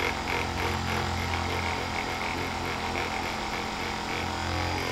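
Handheld Theragun-style percussion massager running steadily against the neck and upper back, a constant motor buzz.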